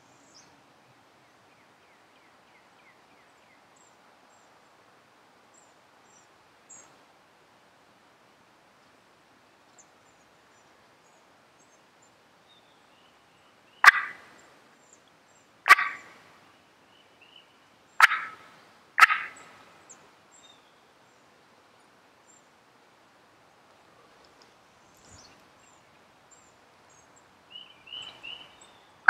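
Wild turkey gobblers gobbling: four loud gobbles in quick succession about halfway through, with faint softer calls near the end and faint songbird chirps in the background.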